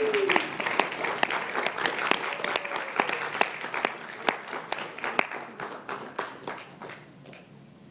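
Audience applauding, the clapping thinning out and fading away near the end.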